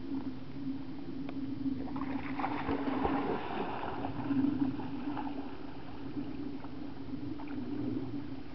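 Water splashing and gurgling, strongest from about two to five seconds in, over a steady low hum.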